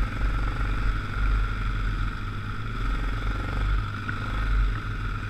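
ATV engine running steadily at low trail speed: a continuous low rumble with a steady higher whine above it.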